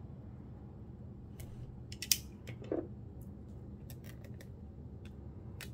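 Plastic shrink-wrap on a book being cut with a small utility knife and picked at with fingernails: scattered sharp clicks and crinkles, the loudest about two seconds in. The wrap is proving hard to open.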